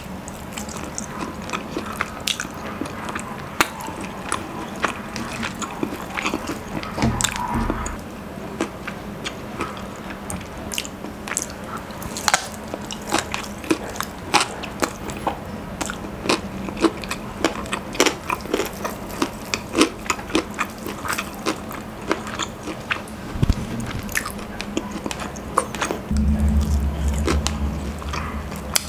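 Crispy Popeyes fried chicken coating crunching, with many sharp crackly bites and chewing close to the microphone. A low rumble lasts a couple of seconds near the end.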